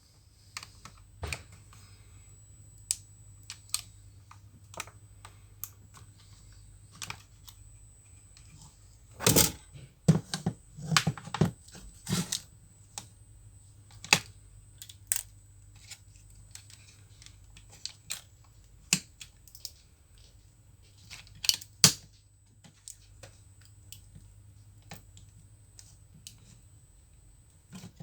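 Scattered sharp clicks and taps of small plastic and metal laptop parts being handled during disassembly, with a louder burst of clicking about a third of the way in and a couple more near the end.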